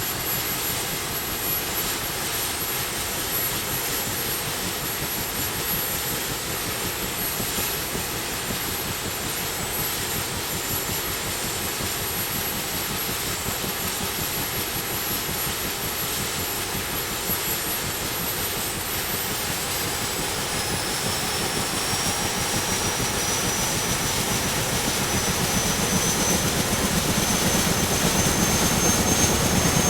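CH-47 Chinook helicopter's twin turboshaft engines and rotors running in a steady dense rush with a high turbine whine. About two-thirds of the way in, the whine rises in pitch and the whole sound grows steadily louder.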